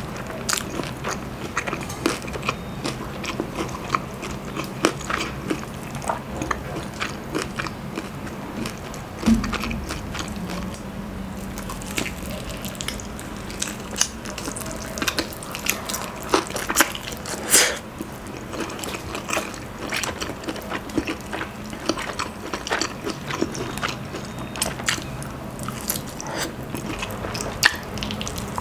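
Close-miked biting and chewing of crispy breaded fried chicken, with frequent sharp crunches and clicks at an irregular pace.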